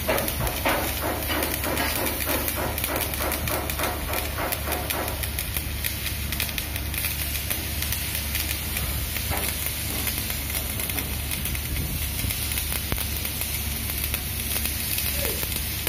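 Electric arc welding overhead on a steel ship hull: the welding arc sizzling steadily. For the first five seconds or so, a regular pulsing of about two or three a second runs with it.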